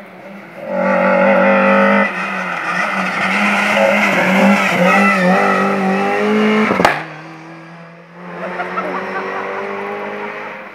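A saloon rally car's engine revving hard through a hairpin, its pitch rising and falling with throttle and gear changes, with one sharp crack about two-thirds of the way in. The engine then carries on, quieter, as the car accelerates away up the road.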